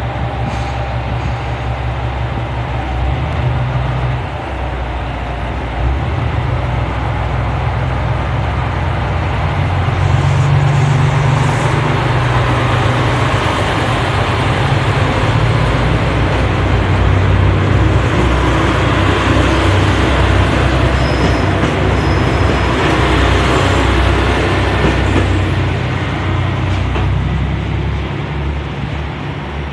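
JR Shikoku 2000 series diesel railcar's engines running as the train pulls out and rolls past close by. The sound grows louder through the middle and eases off near the end as the train draws away.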